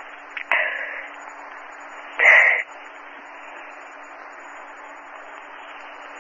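Steady hiss and a low hum of an old 1964 tape recording, with two short noisy bursts, a weaker one about half a second in and a louder, brief one about two seconds in.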